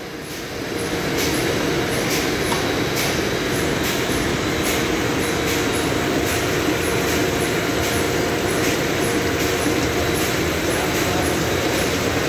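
MP-DW-301 stacked-ring dewatering screw press running on DAF sludge: a steady mechanical hum with filtrate water pouring and splashing down through the rings into the trough, and light regular ticking about twice a second. It gets louder about a second in.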